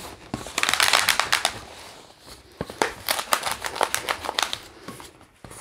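Inflated latex 260 twisting balloon being handled and bent, its rubber rubbing against hands and other balloons in crackly, crinkling runs of quick clicks. The noise comes in two stretches, the first about half a second in and the second about three seconds in.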